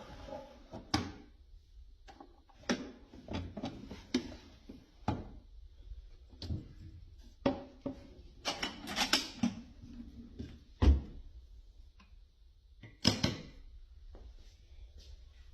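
Wooden pieces being handled: irregular wood-on-wood knocks and clicks with a few stretches of scraping and sliding, and one heavier thump about two-thirds of the way through.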